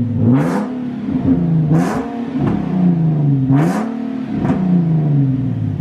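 Nissan 370Z Nismo's 3.7-litre V6, running with its muffler removed, blipped three times. Each rev climbs quickly and falls back toward idle, with a raspy exhaust note.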